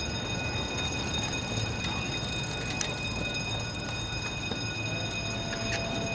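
Warning bell at a bascule bridge's lowered road barriers, ringing continuously as the signal that the bridge is closed to traffic, over a low traffic rumble. Two sharp clicks sound about three and six seconds in.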